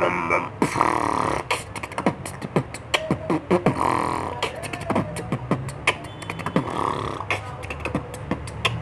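Solo beatbox freestyle: fast drum sounds made with the mouth, clicks, kicks and snares in a quick rhythm, mixed with a few short pitched sounds that slide up and down.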